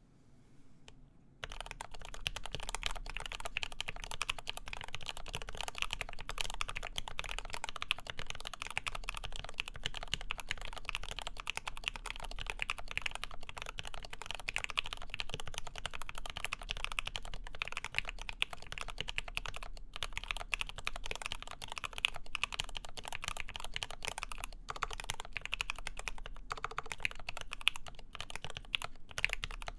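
Continuous fast typing on a Lin Works EM7 mechanical keyboard with lubed ZealPC Tealios linear switches, a full aluminium plate and GMK keycaps: a dense stream of key clicks and thocks that starts about a second and a half in.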